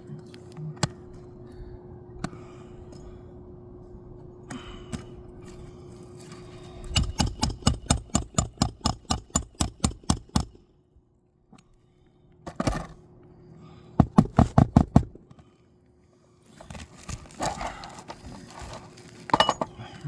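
Hammer driving roofing nails into an asphalt shingle: a quick run of sharp taps, about four a second, then a short pause and another quick burst of blows.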